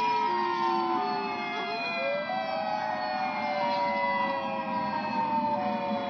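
Several recordings of outdoor tornado warning sirens wailing at once, played back through computer speakers: several tones at different pitches overlap, most slowly falling, with one rising sharply about two seconds in.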